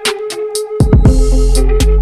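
Background electronic music with a steady drum beat and a sustained synth tone; the bass drops out for the first second, then comes back.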